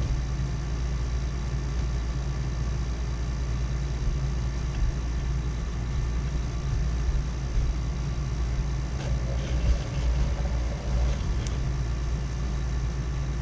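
Steady low hum of a rod-wrapping machine's motor, turning a fishing rod in its chuck while thread is wound on over a guide.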